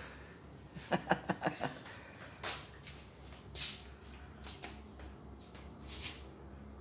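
Handling noise from a phone being moved around: a quick run of light clicks and taps about a second in, then several short rustling hisses, over a low steady hum.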